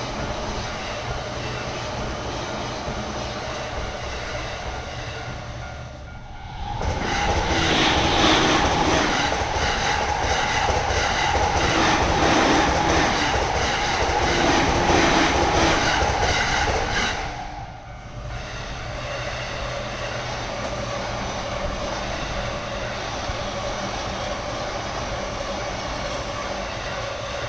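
Electric commuter trains passing over a Japanese level crossing, with the crossing's warning bell ringing steadily. Between abrupt changes about six and seventeen seconds in, a train passes close and loud, its wheels clattering rhythmically over the rail joints.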